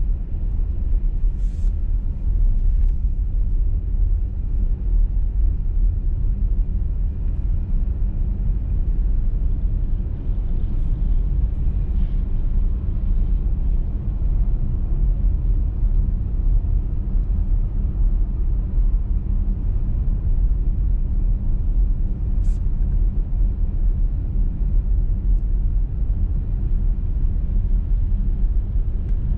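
Steady low rumble of a car driving at road speed on a snowy motorway, engine and tyre noise, with a few faint short ticks.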